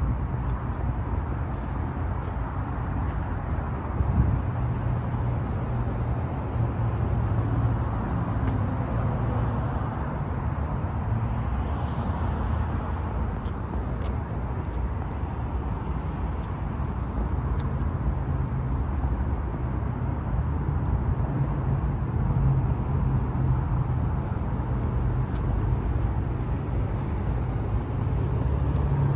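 Polaris Ranger RZR 800 EFI side-by-side's twin-cylinder engine idling steadily, a low even hum.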